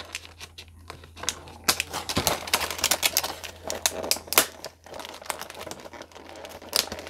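Stiff plastic clamshell packaging crinkling and crackling as it is pried and pulled open, an irregular run of sharp snaps and crackles that is busiest in the middle.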